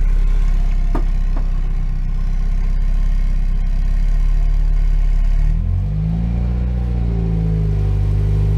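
Mazda Miata's four-cylinder engine running low as the car is driven slowly, with two light knocks about a second in. About five and a half seconds in, the engine note rises and then holds at a slightly higher, steady pitch.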